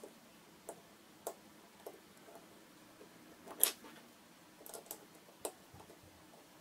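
Scattered light clicks and clinks of small metal parts handled by hand as a bolt is fitted into a bracket on a wooden bench, with one louder click about three and a half seconds in.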